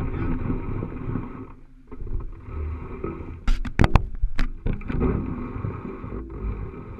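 Handling noise and rumble from an action camera fixed to a fishing rod as the rod is worked, with a cluster of sharp knocks about halfway through.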